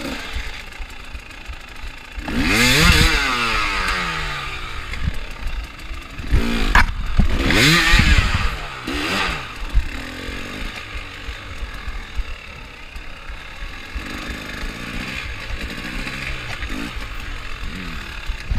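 KTM enduro motorcycle engine revving up and down in two loud bursts, with a sharp knock in the middle of the second. It then runs at lower revs with smaller rises and falls.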